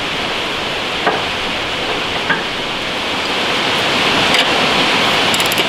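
Steady hiss of background noise, with a few faint metal taps and, near the end, a quick run of ratchet clicks as a wrench and ratchet tighten the lock nut on a mower deck's guide-roller axle.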